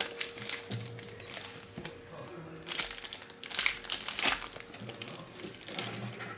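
Crinkling of plastic-foil trading-card pack wrappers being handled and torn open, in a run of irregular crackles.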